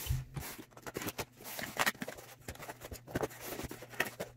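Cardboard shipping box being handled and opened: a soft thump at the start, then scattered light scrapes, clicks and rustles of cardboard and packing tape as the taped flaps are slit and pulled back.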